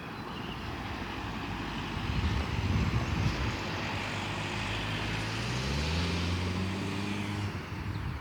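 A motor vehicle's engine passing by, swelling about two seconds in, with a low engine hum in the second half, then fading near the end.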